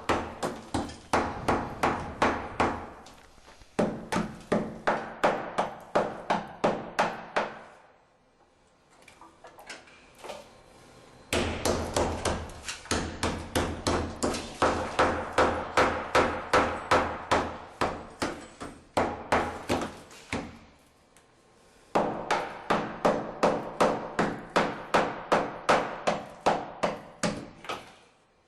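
Hammer blows chipping away tile and light concrete from a wall, about three strikes a second in long runs broken by two short pauses.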